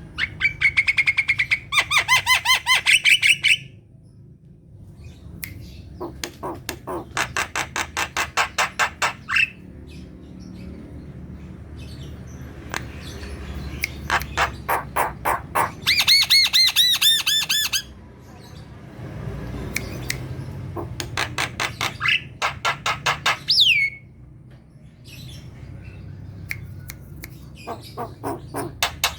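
Javan myna in full song: repeated bursts of rapid rattling, chattering notes and squawks, each lasting two to four seconds with short pauses between them. A sharp falling whistle ends one burst near the end.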